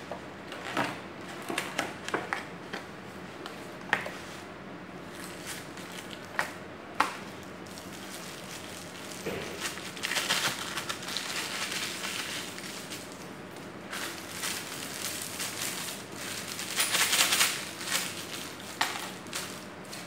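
Cardboard takeout box handled and opened on a table, with a series of sharp taps and knocks. Then longer bouts of crinkling as a plastic-wrapped item is unwrapped, loudest about three-quarters of the way through.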